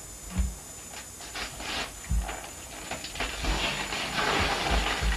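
Gift wrapping paper crinkling and tearing as a present is unwrapped, louder and denser from about three seconds in, with a few dull low thumps as the box is handled.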